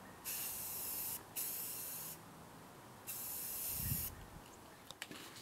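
Aerosol can of Rust-Oleum satin black spray paint hissing in three bursts, the first two nearly run together and the third after a pause of about a second.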